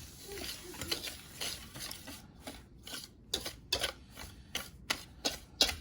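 A wire whisk stirring a dry powder mix in a bowl, with an uneven run of scrapes and clicks against the bowl, about two or three a second.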